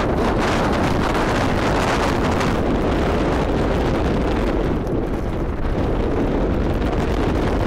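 Strong blizzard wind buffeting a cell phone's microphone: a steady, loud rushing noise.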